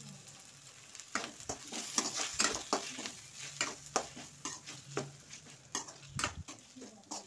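A steel spatula stirring and scraping sliced tomatoes and onions around a hot non-stick kadai, about two to three strokes a second starting about a second in, over the sizzle of the frying oil.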